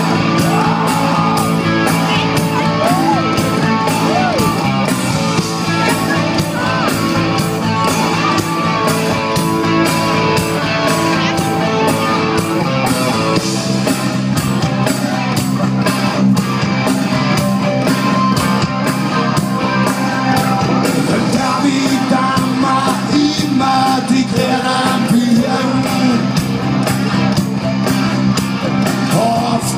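Live rock band playing loud and continuous, with electric guitars, bass and a steady beat.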